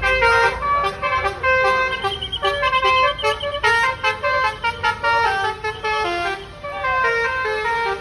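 A tour bus's basuri musical horn playing a quick melody of short notes, stepping to a new pitch several times a second.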